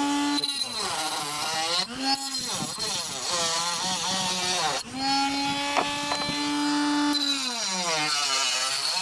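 Small high-speed power tool motor cutting into plastic trim: a steady whine that sags and wavers in pitch as the tool bites, recovers, then bogs down again near the end.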